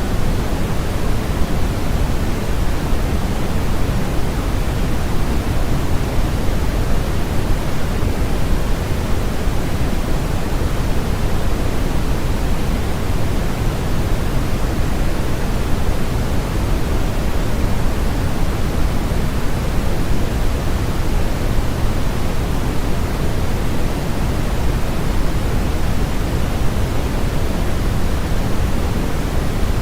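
Steady synthetic noise of the kind played as a sleep aid: an even, unchanging rush, heavier in the low end than in the highs.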